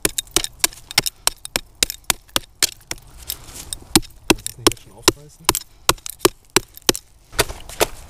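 Knife blade working at the rusted lid of a German WWII gas mask canister: a rapid, irregular run of sharp clicks and cracks as the corroded sheet metal is cut and pried open.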